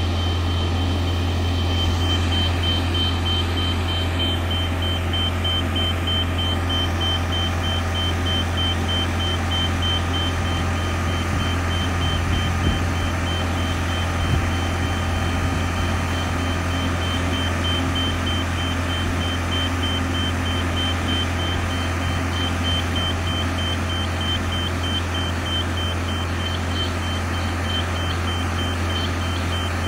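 Self-propelled modular transporter carrying a yacht, its power-pack engine running with a steady low drone while its travel warning beeper sounds a continuous run of rapid, high-pitched beeps as it moves.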